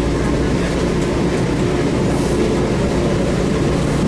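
Taipei Metro Wenhu Line Innovia APM 256 train standing at a station platform, giving a steady hum and rumble that does not change.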